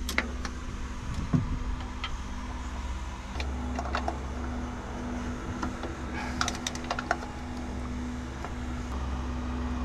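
Small metallic clicks and taps of hand tools working an oil filter off a Yanmar 3YM30 diesel engine, scattered, with small clusters of ticks about four seconds in and again around six to seven seconds in. A steady low hum runs underneath.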